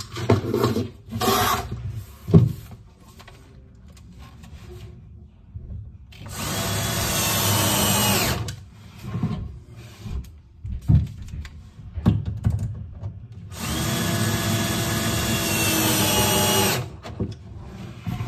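A handheld power drill runs in two long, steady spells of about two and three seconds, working at the corner post of melamine kitchen units. Sharp knocks and clicks from handling come first.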